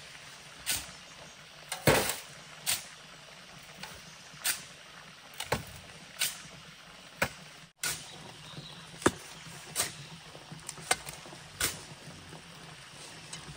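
Shovel digging into a pile of sand and tipping loads into a metal wheelbarrow: sharp scrapes and clunks at an uneven pace, roughly one a second.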